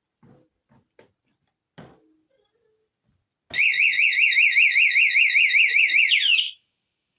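Motorcycle alarm siren going off after it has been armed, showing that the newly installed alarm works. A few faint taps come first. Then, about three and a half seconds in, a loud, fast warbling siren sounds for about three seconds and ends in a falling sweep.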